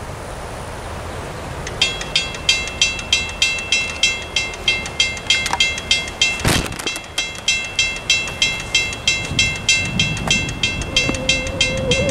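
Railroad crossing bell starting to ring about two seconds in, striking evenly about three times a second as the crossing signals activate. Near the end the low rumble of an approaching train builds under the bell.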